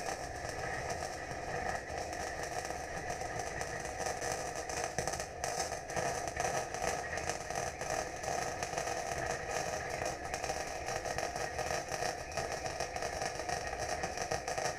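Electric welding arc crackling and sizzling steadily, without a break.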